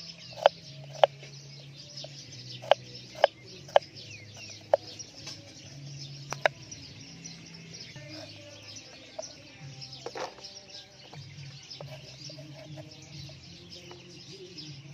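Kitchen knife chopping through bilimbi fruit onto a wooden chopping board: about eight sharp chops, at first about two a second, then more spaced out, stopping about six and a half seconds in. Chickens clucking and birds chirping behind.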